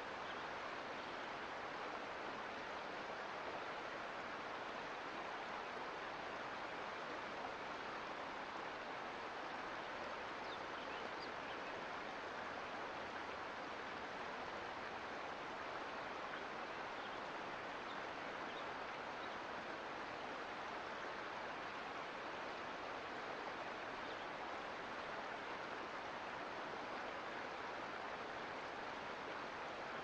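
Creek water flowing in a steady, even rush that doesn't change.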